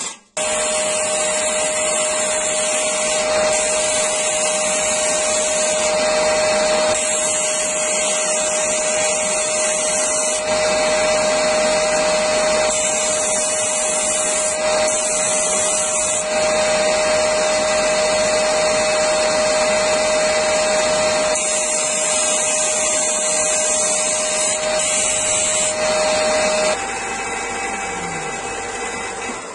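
Parkside PBTS 370 B2 belt and disc sander, its 370 W induction motor starting up and running with a steady hum while a thin metal strip is pressed against the wood sanding disc in several spells of hissing grinding that come and go. About 27 seconds in the motor is switched off and the disc runs down.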